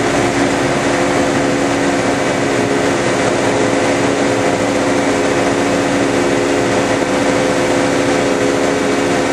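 Boat running on a 125 hp hydraulic thruster: a steady machinery drone that holds one pitch, over the rush of churning propeller wash.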